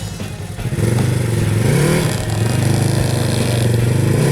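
Side-by-side UTV engine running steadily under load, with a brief rise in revs about two seconds in, as the machine works at dragging a fallen tree.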